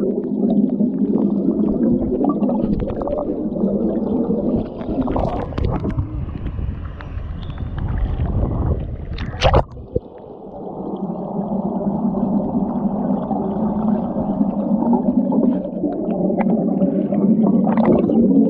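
Muffled underwater sound of a camera held under the sea, with bubbles rising from the sandy seabed of a hot-spring vent and water moving around it. A single sharp noise about halfway through is followed by a brief quieter spell before the muffled bubbling and water noise return.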